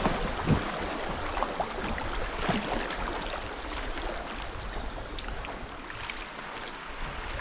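River water rushing and lapping around a canoe's hull as it drifts through a shallow riffle, with a few faint light knocks; the water sound slowly eases as the canoe reaches calmer water.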